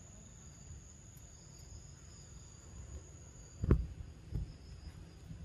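A steady high-pitched insect tone over a low rumble of outdoor background noise. About two-thirds of the way through there is a loud thump, and the insect tone stops at that moment; a smaller thump follows a little later.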